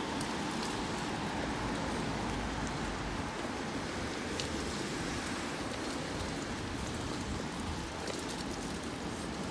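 Steady hiss of an electric bicycle's tyres rolling on wet asphalt, with the rush of riding through the air.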